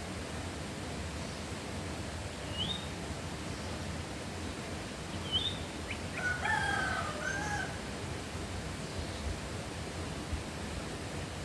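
A rooster crows once, about six seconds in, a single call lasting a second and a half. A small bird chirps twice before it, over a steady hiss.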